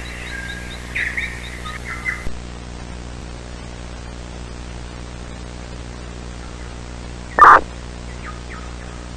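Birds chirping for the first two seconds, then a steady static hiss with a low hum. One loud, short bird call comes about seven and a half seconds in, followed by a couple of faint chirps.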